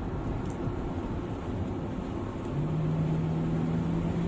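Car driving at speed with steady road noise; about two and a half seconds in, a low engine hum comes in and slowly climbs in pitch as the car speeds up for the next braking test.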